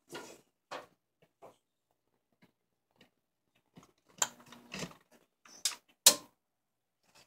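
Scattered clicks and knocks from handling a plug and an angle grinder's switch, with sharper clicks about four and six seconds in. No motor starts: the power has cut out.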